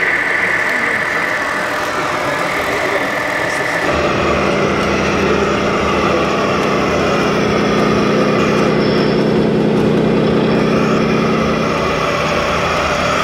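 Diesel truck engine sound from the loudspeaker sound module of a scale RC truck, running steadily. About four seconds in it changes to a different, deeper steady engine sound from another model truck.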